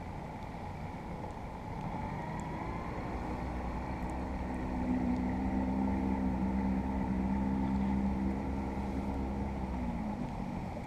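Boat's outboard motor running under way. It builds up about two seconds in, holds steady and loudest through the middle, then eases off near the end.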